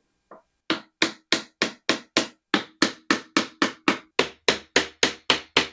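Small wooden mallet tapping steadily at about three to four strikes a second, driving a shoe rack's plastic corner connectors down onto the short rods that join its tiers. One light tap comes first, then the steady run of strikes begins under a second in.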